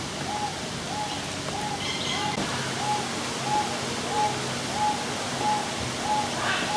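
A bird calling the same short rising-and-falling note over and over, about two a second, evenly spaced.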